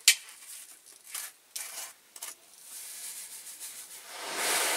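Caustic soda poured from a plastic bottle into a tub of hot water: a sharp click and a few short plastic scrapes at first, then a rushing hiss that swells over the last couple of seconds as the granules pour into the water.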